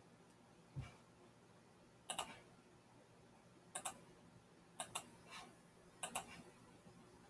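A computer mouse clicks four times, each click a quick close pair. There is a soft low thump about a second in.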